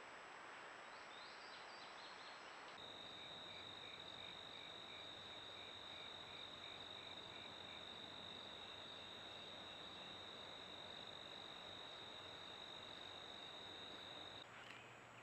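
Faint hiss from a trail camera's microphone, then from about three seconds in a steady high-pitched insect trill with a softer pulsing insect call beneath it, stopping about a second before the end.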